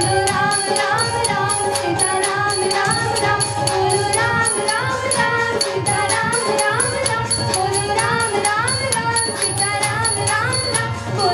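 Indian classical-style music: a bending melody line over fast, steady percussion.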